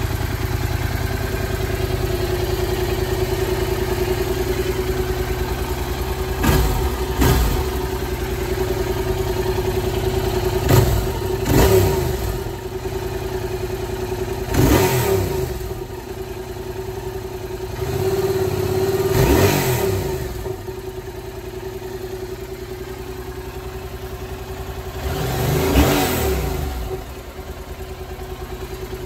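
Yamaha MT-07's 689 cc parallel-twin engine idling steadily through its stock exhaust, with about seven quick throttle blips that rise and fall off sharply back to idle; the blip near the end is held a little longer.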